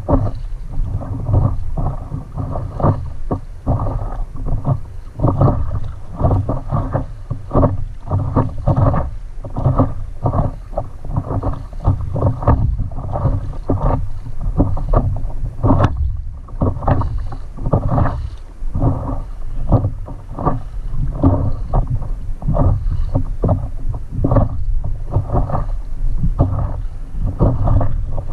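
Water splashing and lapping against a stand-up paddleboard on gently choppy sea, in a dense, irregular patter, with wind rumbling on the microphone.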